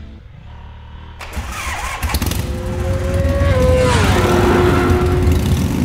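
Motorcycle engine sound effect that starts suddenly about a second in, runs loudly with a deep rumble, and drops in pitch near the four-second mark.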